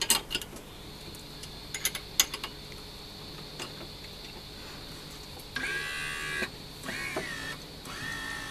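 A few sharp metallic clicks as the hoist's clips are fastened onto the scooter, then the Autochair 80 kg boot hoist's electric lift motor whining in three short runs from about five and a half seconds in. The motor is powered up from the hand controller and starting to lift the scooter.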